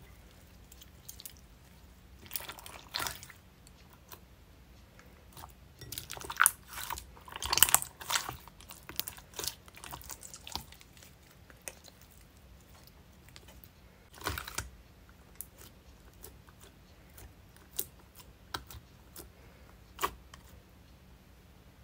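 Clear, bead-filled jiggly slime being squeezed and kneaded by hand: irregular wet squelches and crackling pops, busiest about six to eight seconds in and again around fourteen seconds, then thinning to a few single pops.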